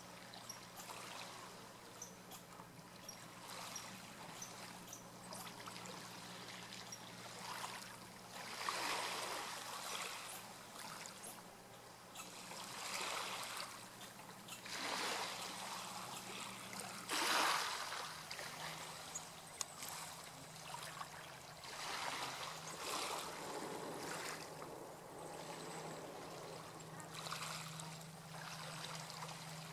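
Gentle water lapping and trickling, swelling every couple of seconds, with one stronger swell about halfway through. A faint steady low hum runs underneath and shifts slightly in pitch at that point.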